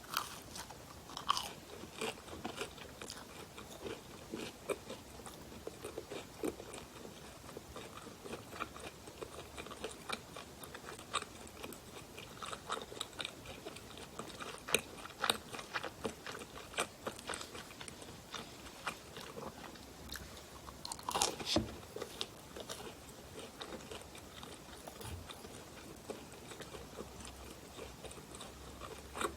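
Close-miked biting and chewing of bakery pastry, red bean pie or cheese bread, with many small crisp crunches and crackles and a louder burst of crunching about two-thirds of the way through.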